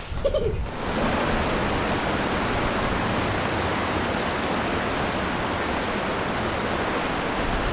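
A brief high voice in the first second, then a steady, even rushing noise with no rhythm or tone.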